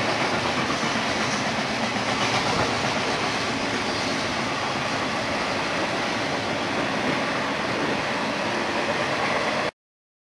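Double-stack container train's cars rolling past: a steady rumble and rattle of steel wheels on rail, cut off abruptly near the end.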